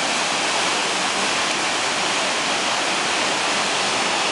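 Waterfall: the steady, even rush of falling water, its hiss strongest in the upper range.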